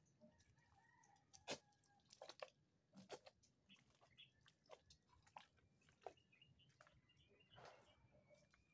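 Near silence, with faint scattered clicks and ticks and a few faint thin whistling tones.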